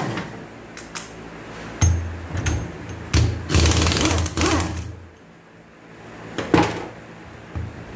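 Metal knocks and clatter of tools and parts on a Hyundai 4WD transfer case being opened up: a few single knocks and a busier spell of rapid clattering in the middle.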